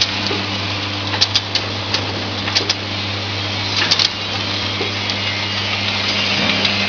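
Vial filling, stoppering and sealing machine running: a steady motor hum with a low drone, broken by sharp mechanical clicks at irregular intervals.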